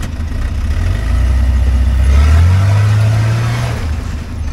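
A Jeep's engine revving under load, climbing in pitch about two seconds in and easing off near the end.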